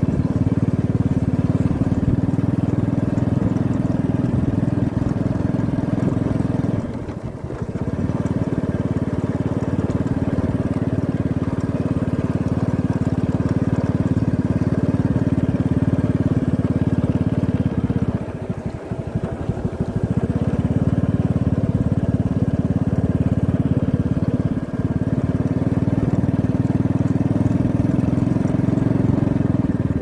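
Small motorbike engine running steadily while riding along a concrete path, a continuous low rumble that dips briefly three times.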